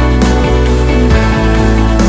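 Background music with deep bass notes that change about every half second under sustained higher notes.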